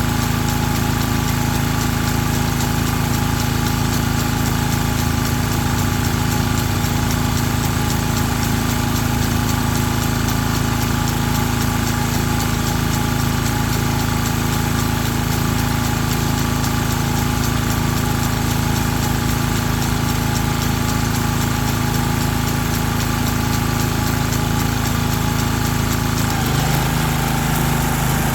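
Ryan GreensAire core aerator's engine running steadily, with a shift in pitch about two seconds before the end.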